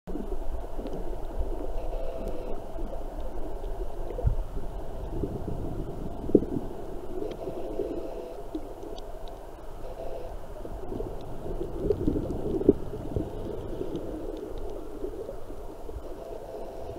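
Muffled underwater noise from a camera held under water in shallow sea: a low, churning rumble with gurgles and a few sharp knocks, the loudest about six seconds in and again near twelve and a half seconds.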